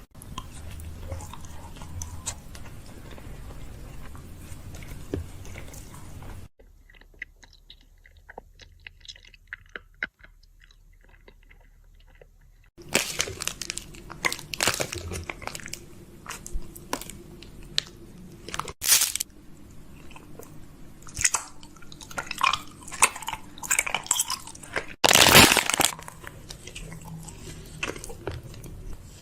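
Close-up crunching and crackling, in short edited segments with a quieter stretch in the middle.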